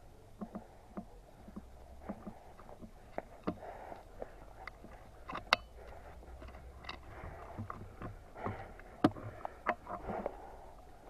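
Irregular crackling and clicking of footsteps and movement through dry brush, with two sharp cracks, one about five and a half seconds in and one about nine seconds in.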